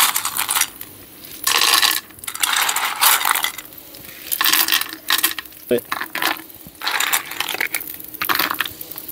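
Mussels and clams being tipped into a pan of hot oil in repeated bursts: the shells clatter and clink against the pan and each other, with a hissing sizzle each time. The chef calls it a lovely lively noise.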